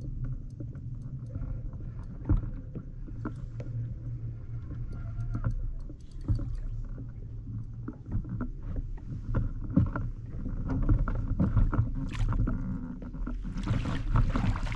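Knocks and clicks on a plastic pedal fishing kayak over a low steady rumble while a hooked bass is fought to the boat, with a burst of splashing near the end as the fish comes alongside.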